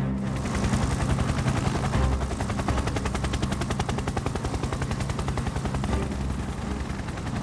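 A fast, even crackling rattle of many clicks a second, like rapid gunfire or heavy static, going on for several seconds.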